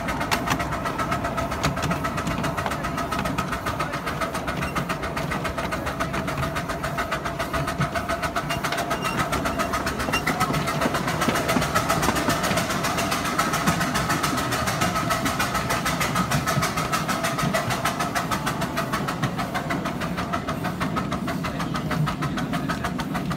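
A 7¼-inch-gauge miniature steam train running along its track, heard from the ride: a fast, even clatter of wheels and beats with a steady ringing tone over it.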